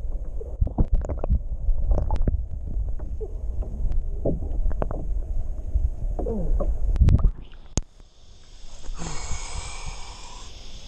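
Muffled underwater sound from a camera held below the surface: a low rumble with scattered clicks and knocks of water movement. About seven seconds in it cuts off as the camera comes out of the water, and a thinner hiss with splashing takes over.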